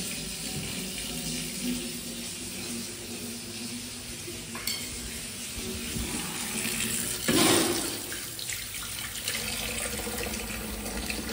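Water running steadily from a tap into a sink, briefly louder about seven seconds in.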